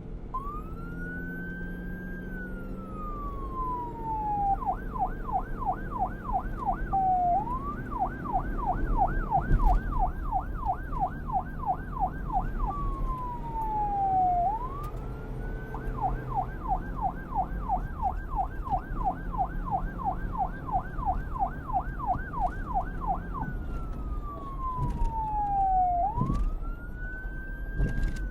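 Police car siren alternating between a slow wail and a fast yelp: each long sweep climbs, then falls slowly, before it breaks into several seconds of rapid warbling at about four or five cycles a second. A low vehicle rumble runs underneath.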